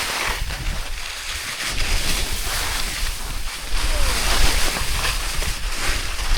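Wind rushing over the microphone, with edges scraping and hissing on snow in surges, the sound of a fast run down a steep mogul slope.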